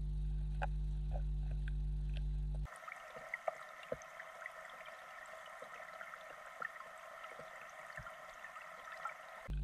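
Underwater recording: a steady low hum with faint ticks, which cuts off sharply about a third of the way in to a quieter stretch of thin higher tones and scattered small clicks, then the low hum comes back just before the end.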